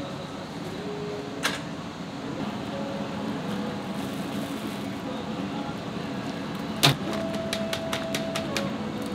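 Ramen shop kitchen ambience: a steady hum of kitchen machinery and burners, with a light clink early on and one sharp knock about seven seconds in, then faint clicks of utensils and dishes.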